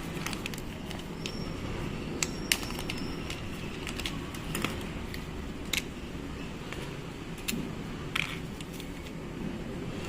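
Scattered light clicks and taps of small metal parts and tools being handled during work on a rotary hammer drill, over a steady low background rumble.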